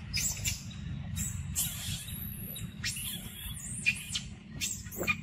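A string of short, high-pitched animal chirps and squeaks, some sliding in pitch, over a steady low background rumble.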